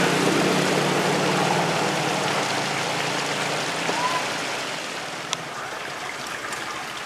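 Water rushing steadily through a concrete irrigation channel that runs under a railway line. A low hum fades out over the first few seconds, and there is one sharp tick about five seconds in.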